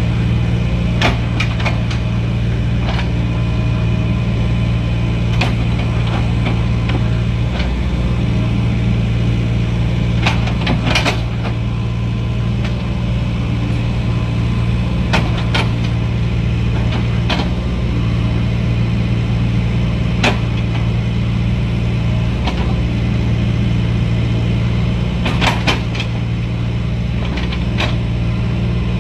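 Excavator's diesel engine running steadily with a low hum, with scattered sharp clanks and knocks from its work on the coal slag cargo.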